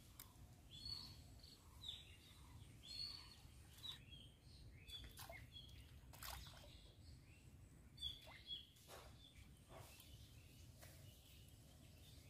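Birds chirping: short high calls repeating about once a second, over a faint steady low background rumble.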